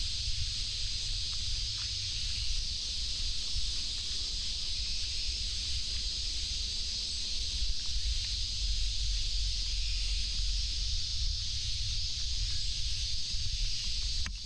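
Steady, unbroken drone of a summer cicada chorus, a high hiss-like buzz from the trees, over a low rumble.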